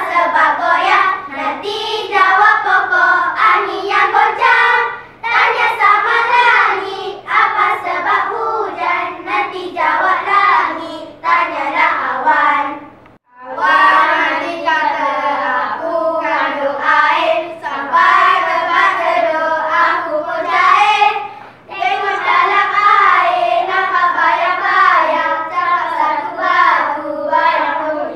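A group of primary-school children singing and chanting together in unison in a bicara berirama choral recitation, phrase after phrase, breaking off briefly about halfway through.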